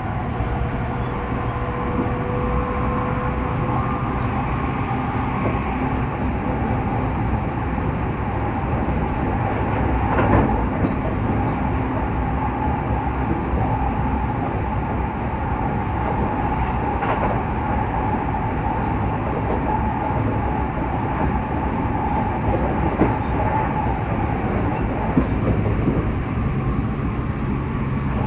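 E257 series 0-subseries electric limited express train running at speed, heard inside the carriage through the window glass: a steady rumble of wheels on rail with a faint whine that comes and goes and a few sharp clicks.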